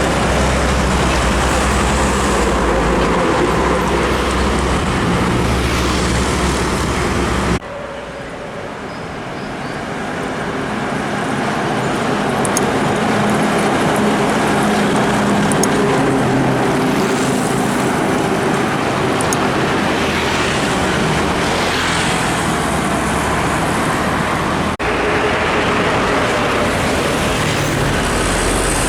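Heavy trucks and traffic passing on a busy road, engines running steadily under tyre and road noise. The sound breaks off and changes abruptly twice, about a quarter of the way in and near the end.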